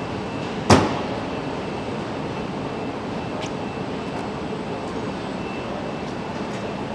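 The bonnet of a BMW 4 Series coupé slammed shut with one sharp thud less than a second in, over a steady rush of factory noise.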